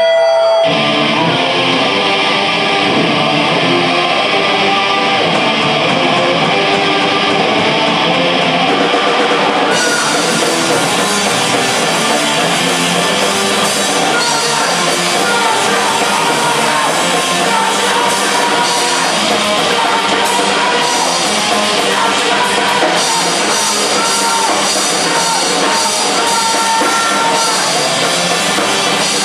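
Live rock band playing an instrumental passage on electric guitar, bass guitar and drum kit. The cymbals come in harder about ten seconds in.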